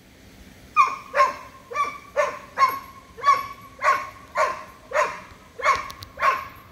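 Doberman puppy barking repeatedly at deer across a fence: a steady run of short, sharp barks, about two a second, starting about a second in.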